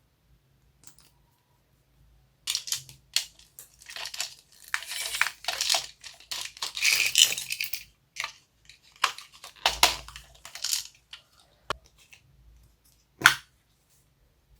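Homemade slime being squished and stretched by hand, giving irregular runs of sticky crackling and popping. A sharp click comes near the end.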